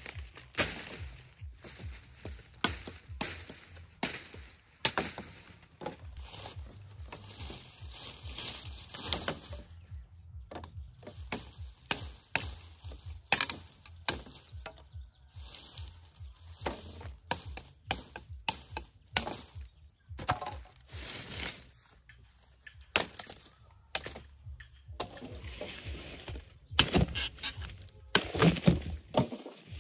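Machete chopping and scraping sugarcane stalks: a steady run of sharp cracks and chops, with louder hacks near the end as standing cane is cut.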